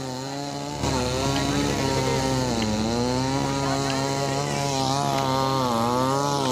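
Petrol chainsaw running as it cuts a roadside tree, the engine note sagging and recovering again and again as the chain bogs under load. It gets louder about a second in.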